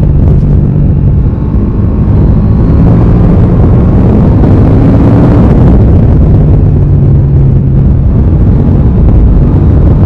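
KTM 890 Duke R's 889 cc parallel-twin engine running steadily while riding, loud. The engine note eases briefly about a second and a half in and rises briefly around five seconds.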